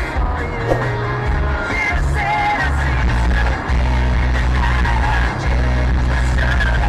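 Pop music with a singing voice over a heavy bass line that changes note every second or so.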